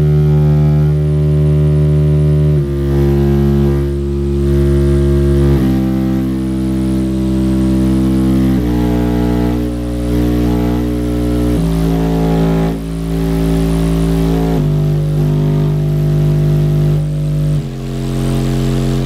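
Rock Series 6.5-inch mini subwoofer in a cardboard box playing a stepped bass frequency sweep near its power limit. Loud steady buzzy tones with many overtones change pitch in steps about every three seconds.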